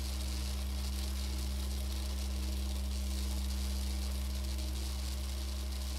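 Bass clarinet holding one very low note as a steady drone, with an airy hiss over it.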